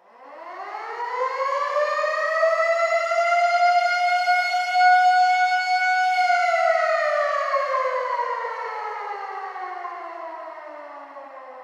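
Air raid siren starting from silence and winding up in pitch over about three seconds to a steady wail, holding it, then winding down slowly from about six seconds in.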